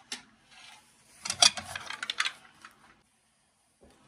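Clinking and rattling of scrap parts being handled on a plastic digital scale, as a cast aluminium saw part is taken off and a bundle of insulated wire is put on. There is a quick run of clicks and knocks about a second in.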